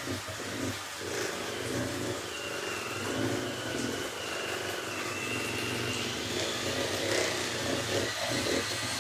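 Electric hand mixer running steadily, a motor hum with a thin whine, its beaters creaming butter and sugar in a metal bowl.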